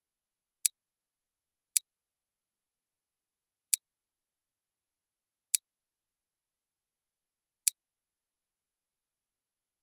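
Five sharp, single clicks from working a computer program, irregularly spaced one to two seconds apart, with dead silence between them.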